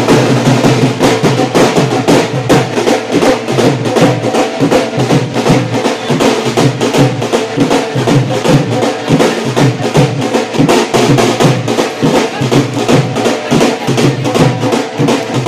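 Loud music driven by fast, steady drumming.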